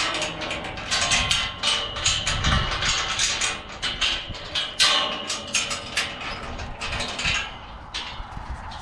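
Irregular clattering and knocking of metal tubing being handled, several sharp knocks a second, thinning out near the end.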